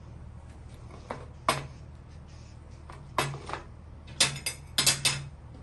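A metal spoon clinking and scraping against a small glass dessert plate: a few sharp clinks at first, then a quick cluster of them in the last second and a half.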